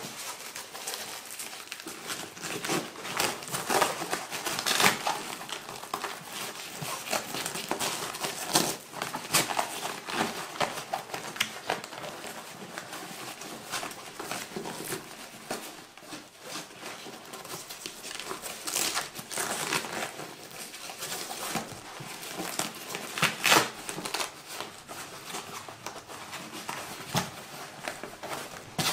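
Continuous rustling and crinkling of a Lowepro Whistler BP 450 AW II camera backpack's fabric, with scattered sharp crackles, as its removable padded floor divider is worked back into place and fastened around its edges with hook-and-loop tape.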